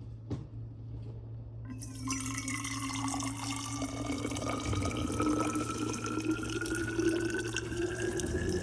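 Water pouring steadily into a container, its pitch rising as the vessel fills, starting a couple of seconds in and stopping near the end.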